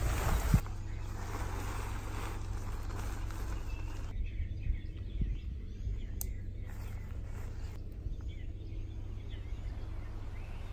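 Outdoor ambience: a steady low hum under a light airy hiss, with faint bird chirps from about the middle on. At the very start a brief rush of noise ends in a knock and the sound changes abruptly.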